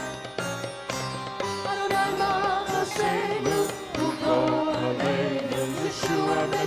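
Live worship band playing an instrumental interlude between sung verses: a wavering lead melody over sustained chords and a steady drum beat.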